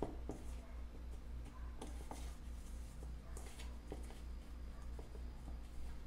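Hands tossing and pressing chicken pieces in dry breading flour in a stainless steel bowl: soft rustling with scattered light taps, over a steady low hum.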